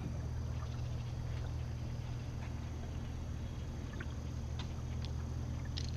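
A boat motor running with a steady low hum, with a few faint light ticks over it.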